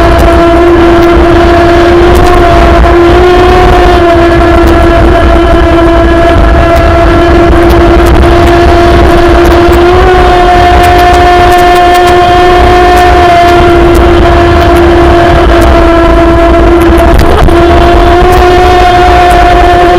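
RC speedboat's brushless electric motor running flat out, a loud steady whine that wavers slightly in pitch. Constant rushing of water and spray from the propeller's rooster tail lies under it.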